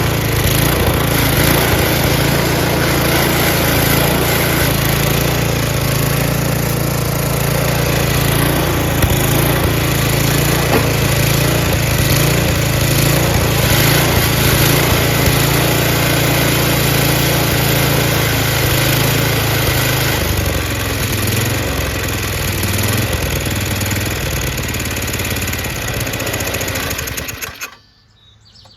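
5.5 hp Tecumseh Snow King single-cylinder engine on a two-stage snowblower, running steadily and surging a little, which the owner takes for a slightly dirty carburetor. Its note changes about two-thirds of the way through, and the engine cuts off suddenly near the end.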